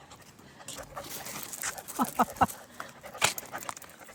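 Old English Sheepdog puppies on leads: three short, falling whimpers about two seconds in, among light clicks and scuffs, with one sharp click a little after three seconds.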